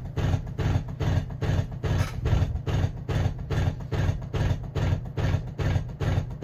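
Emerson friction-drive ceiling fan running, with loud rhythmic thudding about twice a second. The fan is noisy and wobbly, and the thuds shake the ceiling.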